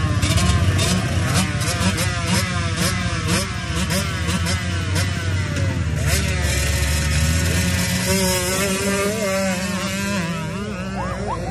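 Dirt bike engines revving, the throttle blipped in quick rising sweeps about twice a second, then settling into a steadier engine note near the end.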